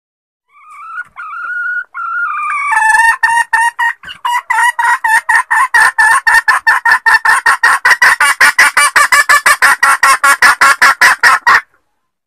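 Female junglefowl calling: first a couple of drawn-out notes that rise slightly, then a long, fast run of short clucking notes, about five a second, which stops abruptly near the end. The uploader presents it as a hen's call for mating.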